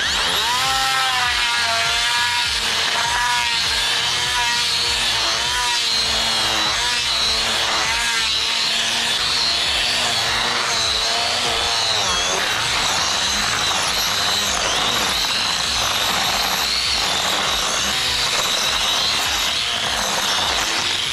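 Makita angle grinder with a carving attachment running and grinding into the trunk's timber, spraying sawdust as it carves out an entrance hole. It makes a continuous loud whine whose pitch wavers as the tool works the wood.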